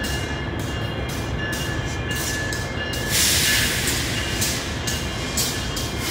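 Metra F59PHI diesel-electric locomotive, running light, pulling slowly away: a steady low engine rumble with two steady high whines. Faint hisses repeat about twice a second, and a louder burst of hiss comes about three seconds in, lasting under a second.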